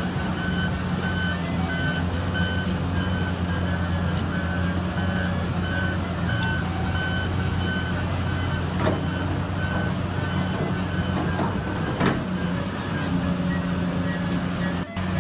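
Heavy diesel machinery running steadily, with a reversing alarm beeping at a steady pace, a little more than once a second, through the first half. Two sharp knocks come later, about three seconds apart.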